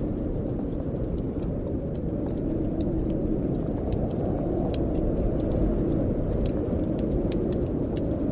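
A wood fire crackling with scattered sharp pops, over a steady low rush of wind.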